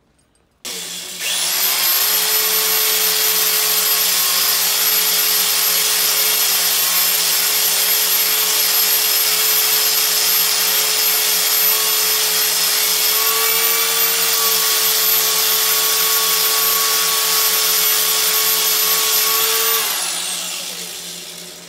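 Small handheld high-speed rotary tool grinding and sanding an oak walking stick, running with a steady high whine. It starts about a second in, then is switched off near the end and winds down.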